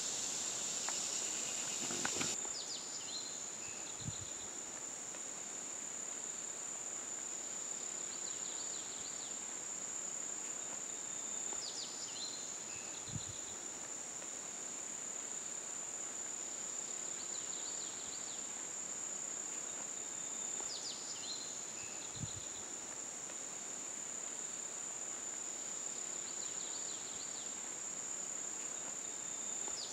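Crickets and other insects keeping up a steady high-pitched trill, with short bird chirps and a soft low thump coming back about every nine seconds.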